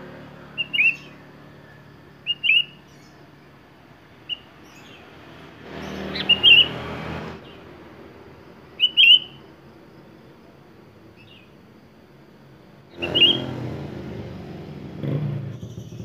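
Sooty-headed bulbul giving short, sharp chirping call notes a couple of seconds apart, several of them in quick pairs. A louder background rush comes and goes twice.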